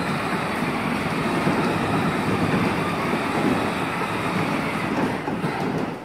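Power Wheels Ford F-150 ride-on truck driving slowly, its electric drive motors and gearboxes running and hard plastic wheels rolling on concrete in a steady, even rumble. The onlooker wonders whether the truck's battery is almost dead.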